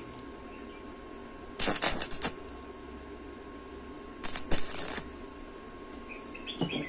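Stick (arc) welder laying short tack welds on thin square steel tubing: two crackling, hissing bursts of arc, each under a second long, about two and a half seconds apart.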